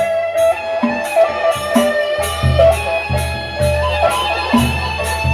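Sasak gendang beleq gamelan ensemble playing, with suling bamboo flutes carrying a melody over gongs and metal percussion. Cymbals crash in a steady beat, and heavy drum strokes come in from about two seconds in.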